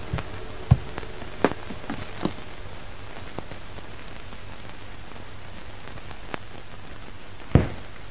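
Steady crackling hiss with scattered pops and a few low thumps, the loudest about seven and a half seconds in.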